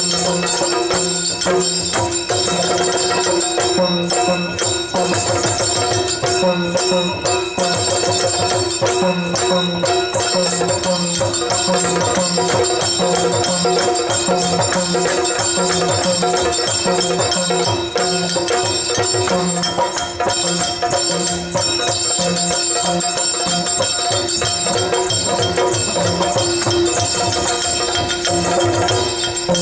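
Yakshagana dance accompaniment: chende and maddale drums playing a steady rhythmic pattern over a sustained drone, with no singing.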